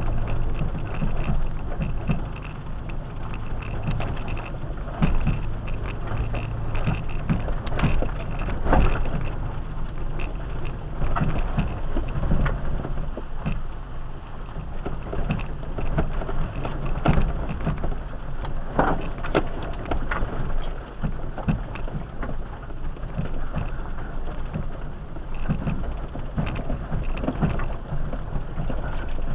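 A four-wheel-drive SUV crawling a rough dirt and rock trail: the engine runs low and steady under a constant crunch of tyres on gravel and rock, with scattered knocks and bumps.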